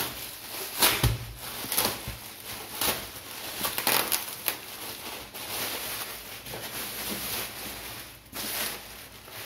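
Thin plastic bag crinkling and rustling in irregular bursts as it is pulled off a cardboard box by hand, with a dull bump about a second in.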